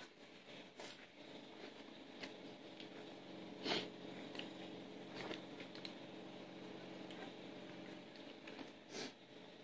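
Two people eating by hand: quiet chewing and a few short mouth smacks or clicks, the loudest about four seconds in and another near the end, over a faint steady hum.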